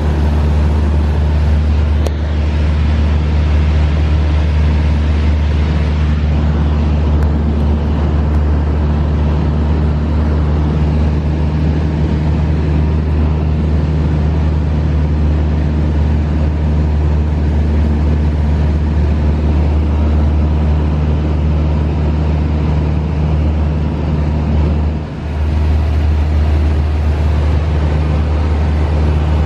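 Steady drone of a single-engine light aircraft's engine and propeller in flight, heard inside the cabin as a loud, deep, even hum. It dips briefly once near the end.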